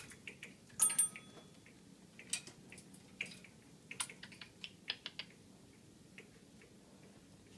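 Scattered sharp clicks and taps as an African grey parrot climbs about a metal hoop perch, the loudest cluster about a second in, then single clicks every second or so, dying away after about five seconds.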